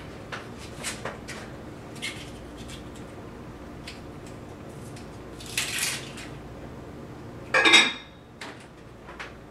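Cookware and utensils clinking and knocking at the stove: a few light clicks, a short clatter about halfway, and a louder clank with a brief metallic ring about three-quarters of the way through.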